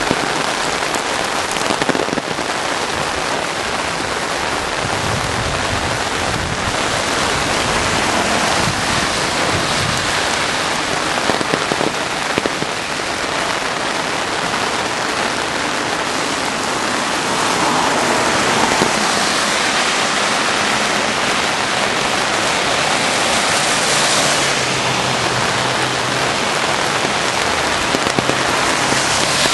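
Heavy rain pouring steadily, a dense even hiss of water falling during a storm.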